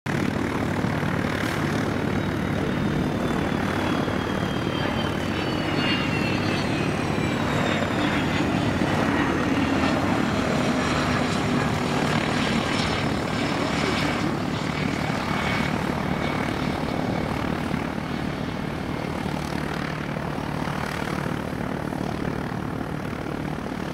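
Cessna CitationJet CJ1+ business jet landing, its twin Williams FJ44 turbofans giving a steady rushing roar. Several high whines fall slowly in pitch through the middle of the passage. The engine noise eases a little in the last few seconds as the jet rolls out.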